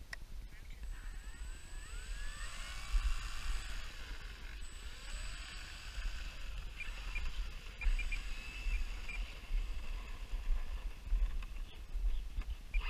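Electric motor and propeller of a Flex Innovations Cessna 170 RC model plane whining, rising and falling in pitch several times as the throttle is worked, then running more steadily as the plane taxis. A low wind rumble sits on the microphone throughout.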